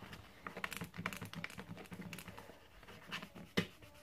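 Kneaded eraser rubbed and pressed against sketchbook paper: faint, irregular scratching and small ticks, with one sharper click near the end.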